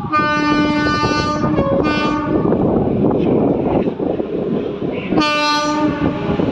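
A train horn sounds three times: a long blast, a short one, then another after a pause of about two and a half seconds. Underneath is the steady rushing and rumbling of a train running by.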